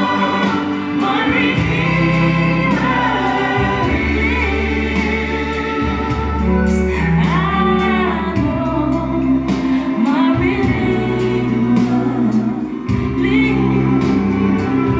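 Live gospel music: singing voices with a band of sustained bass and keyboard chords over a steady drum beat.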